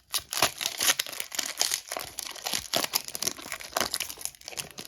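Crinkly plastic packaging of a trading-card pack being handled and crumpled, with some tearing.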